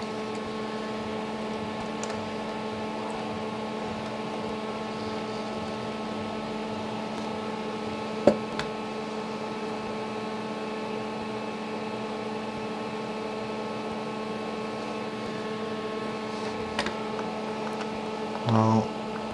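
Steady hum with several pitched tones, with sharp clicks from a motor circuit breaker's plastic parts and screws being handled during reassembly, one about eight seconds in and another near seventeen seconds. A short louder sound comes near the end.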